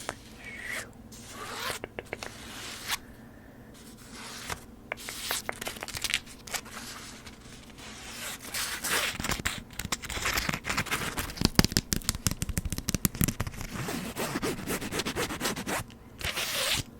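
Close-up scratching and scraping, in quick zipper-like rasps, that become busier and louder about halfway through.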